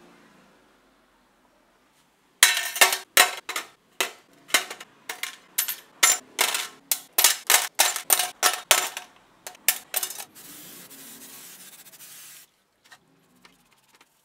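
Small steel planetary gears, pins and rings from a cordless drill's gearbox clattering into a stainless steel tray: a rapid run of ringing metallic clinks over several seconds. Near the end comes a steady hiss lasting about two seconds.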